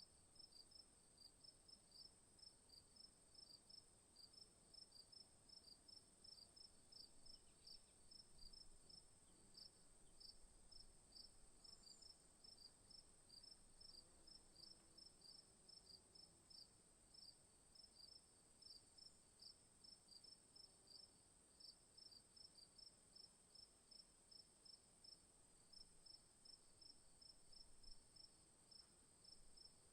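Crickets chirping in a steady rhythm, about two and a half chirps a second, over a continuous high-pitched insect trill.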